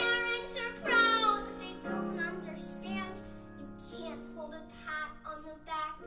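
A young girl singing a musical-theatre song live into a microphone, accompanied by piano.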